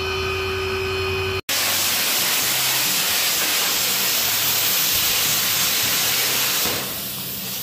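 A steady low hum, then after a brief break a plasma cutter cutting through sheet metal: a loud, even hiss that dies down near the end.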